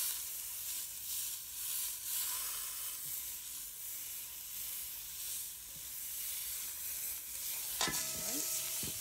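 Beef eye round roast searing in hot oil in a stainless steel pot: a steady sizzle as one end of the roast browns, with a sharp click near the end.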